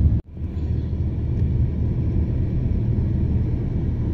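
Steady low rumble of a car driving, heard inside the cabin: road and engine noise. It drops out abruptly for a moment about a quarter second in, then carries on evenly.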